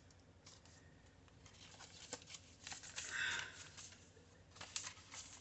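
Paper pages and cards of a handmade journal being handled and turned: faint rustles and light taps, the loudest a short rustle about three seconds in.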